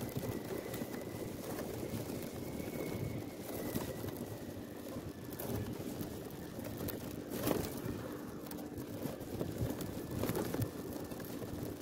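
Wind buffeting the microphone of a mobile phone carried aloft on a kite: a steady rumbling rush with a few sharp taps and knocks as the phone jostles.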